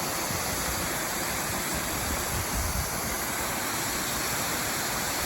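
Steady rush of a waterfall, the 62-foot lower Delphi Falls pouring partly behind ice, a constant even roar.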